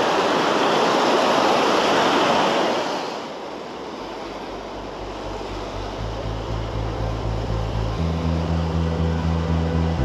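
Small waves washing on the shore, fading out about three seconds in; then background music with a pulsing bass line comes in and grows louder.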